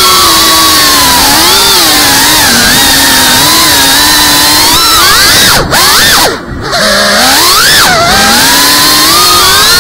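GEPRC cinewhoop FPV drone's motors and ducted propellers whining, the pitch rising and falling constantly with the throttle. The sound drops away briefly twice around the middle before it climbs again.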